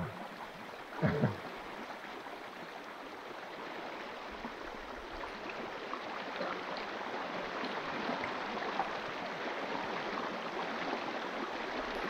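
A mountain river in flood rushing steadily over its bed, growing slowly louder. A short louder sound breaks in about a second in.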